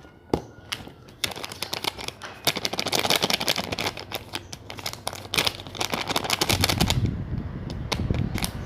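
Glue-based slime mixture being stirred hard in a container: a fast, dense run of clicking, busiest in the middle and giving way to a lower rustle near the end. The mixture is still loose and has not yet set into slime.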